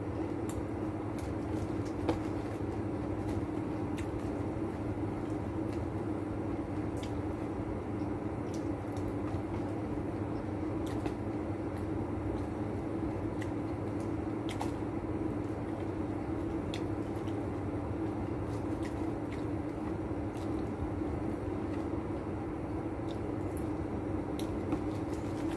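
Steady machine hum, with scattered small clicks and rustles from fried chicken being eaten by hand out of a paper bag.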